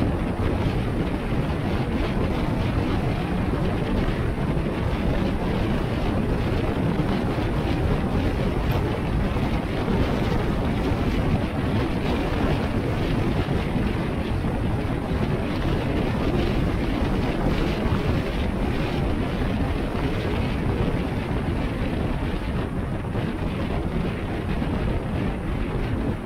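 A car driving: steady road and wind noise with wind buffeting the microphone.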